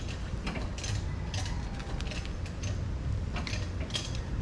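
Irregular metallic clicks and clinks of hand tools and steel brake parts being worked on a truck's drum brake, over a steady low hum.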